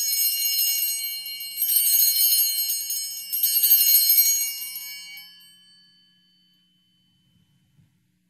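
Altar bells (Sanctus bells) shaken three times, marking the elevation of the host at the consecration. Each shake sets off a bright, shimmering jangle of several small bells, and the ringing fades away about six seconds in.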